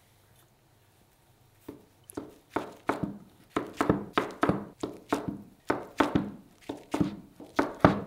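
Kitchen knife slicing through a salmon-topped sushi roll and knocking on the cutting board: a quick run of short cutting strokes, about three a second, starting about two seconds in.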